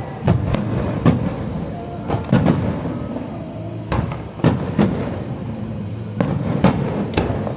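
Aerial fireworks shells bursting: about ten sharp bangs, some in quick pairs, at irregular intervals over a continuous low rumble of echoing reports.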